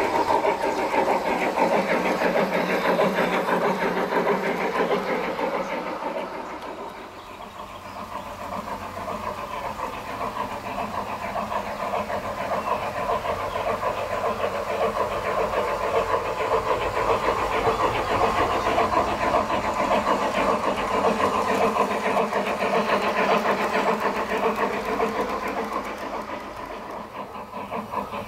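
Gauge 1 Märklin model steam locomotive (Prussian G8 / BR 55) running with a goods train on garden track: a steady, fast-rhythmed mechanical running noise from the motor drive and wheels on the rails. It fades about seven seconds in and again near the end, and rises in between.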